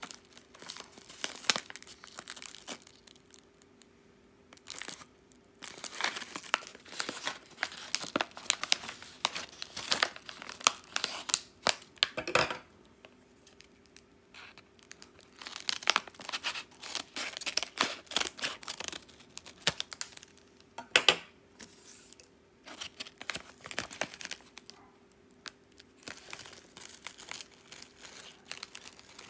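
Plastic snack wrapper crinkling as it is handled and cut open with scissors, in irregular stretches with a few sharp clicks and short pauses, then the rustle of the paper tray of rice crackers sliding out. The wrapper is close to the microphone.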